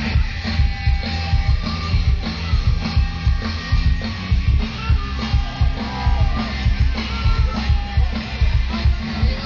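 Loud rock music with electric guitar, bass and a drum kit keeping a steady beat.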